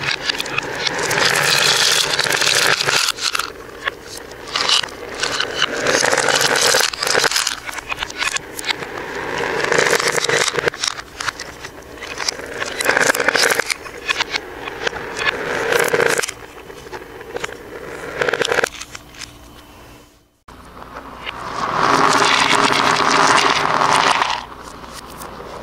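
Handfuls of plastic beads rattling and clattering in plastic cups and onto a hard floor, in bursts of a second or two with short pauses between. About twenty seconds in, the sound cuts out for a moment, then comes back with a longer burst of rattling.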